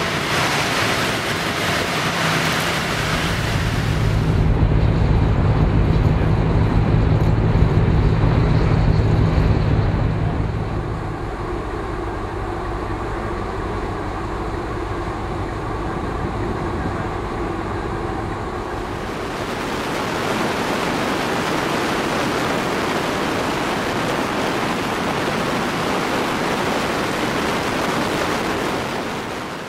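Motorcycle and ferry travel noise. A loud steady low engine drone gives way about ten seconds in to a quieter engine hum with sea and wind noise aboard a ferry. From about twenty seconds in, heavy wind rushes over the microphone of a moving motorcycle.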